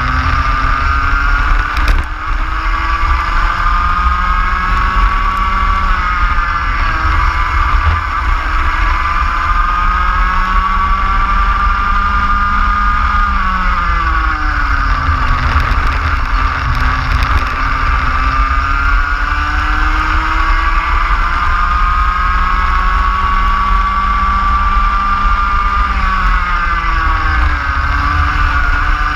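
Racing kart's engine driven hard around a circuit, its high note climbing steadily along the straights and dropping sharply as it slows for the corners, about a quarter of the way in, halfway through and again near the end. A steady low rumble of wind and track noise runs beneath it.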